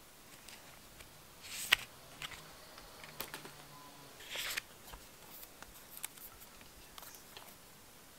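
Hands handling iPhone box packaging: light paper and cardboard rustles and soft taps and clicks, with a sharp click a little under two seconds in and a longer rustle around four and a half seconds in.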